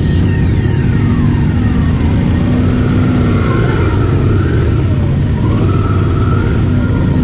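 Motorcycle engine running at low speed as the bike rolls slowly, a loud steady low rumble on the bike-mounted microphone. A high tone slides steadily down over the first two seconds, and wavering higher tones come and go later.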